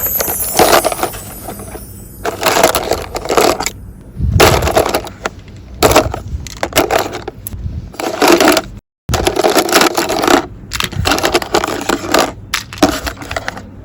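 Hard plastic toy pieces being handled, opened and set down, with repeated clacks and rattles in short bursts.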